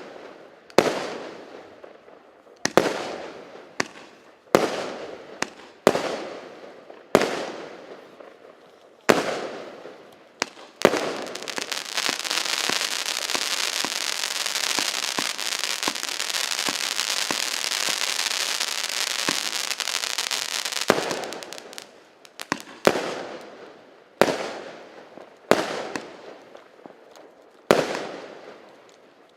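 A 169-shot, 0.8-inch consumer firework cake firing. Separate shots go off about every one to two seconds, each bang fading out. From about eleven seconds in, a stretch of roughly ten seconds of continuous dense crackling takes over, and then separate shots resume.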